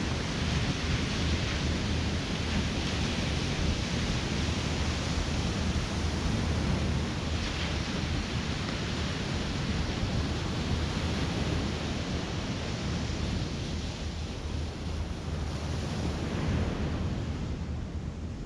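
Ocean surf breaking and washing on a sandy beach, a steady wash of noise, with wind buffeting the microphone in a low rumble.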